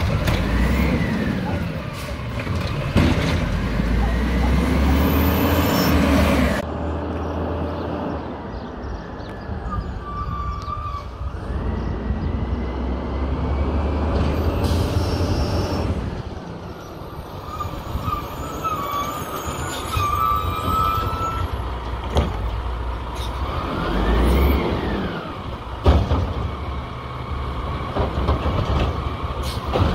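WhiteGMC garbage truck with an Amrep automated side-loader arm. Its diesel engine revs up and down in rising-and-falling glides to drive the hydraulic arm as it lifts and dumps a recycling cart, at the start and again near the end, with sharp bangs as the cart hits home. In between, the truck's diesel runs steadily as it drives along the street.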